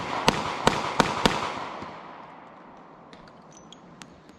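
Taurus Model 85 Classic .38 Special revolver fired rapidly with 158-grain lead round-nose handloads: four shots in about a second, the reports echoing and fading over the next two seconds. A few faint clicks near the end.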